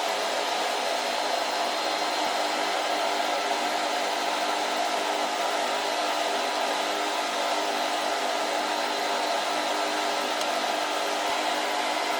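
Small electric blower running steadily at one speed: an even rush of air with a constant whine over it.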